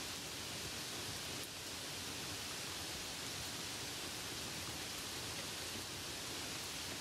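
Light rain sound effect: a steady, even hiss.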